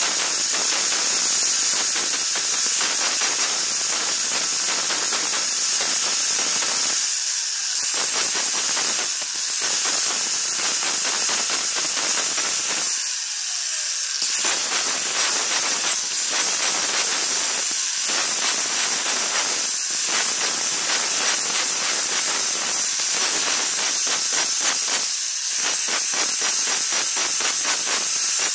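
Handheld angle grinder running steadily while a thin sliver of bone is ground against its spinning disc to shape a needle, giving a steady high hiss. The lower part of the sound drops out briefly a few times, about seven, thirteen and twenty-five seconds in.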